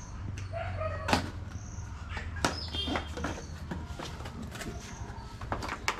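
Cardboard box being opened by hand, flaps and packing rustling, with a few sharp knocks and clicks: the loudest about a second in, another about two and a half seconds in, and one near the end.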